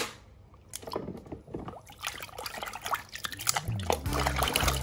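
Water splashed and stirred by hand in a plastic tub, with irregular splashes and drips that start about a second in and grow busier. Background music with a low bass line comes in near the end.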